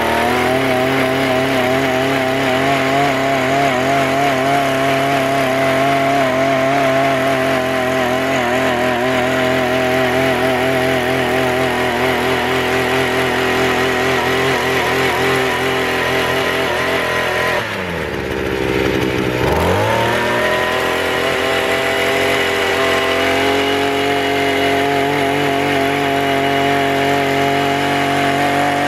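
Petrol brush cutter engine running at high revs, driving a tiller attachment whose tines churn through weedy soil. About 18 s in the revs drop sharply and climb straight back up.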